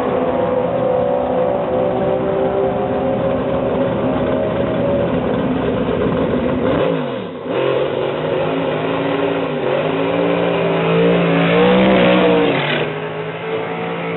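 Drag-racing engine running hard at high revs, its pitch easing down and then falling sharply about halfway through, after which the revs climb and waver again, loudest near the end.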